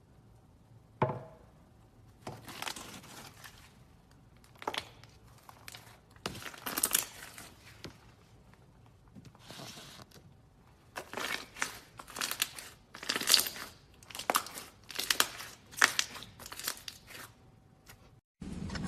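Slime being squeezed, stretched and pressed by hand, giving a series of irregular crackling, crinkly squishes with short pauses between them, after a single sharp knock about a second in.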